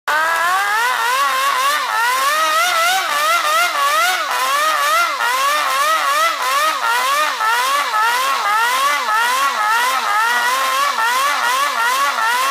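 Toyan Wankel rotary model engine running, its throttle blipped over and over so the pitch rises and falls about twice a second.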